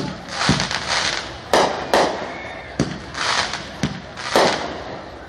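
Aerial fireworks shells launching and bursting: about seven sharp bangs at irregular intervals, with a hiss between them.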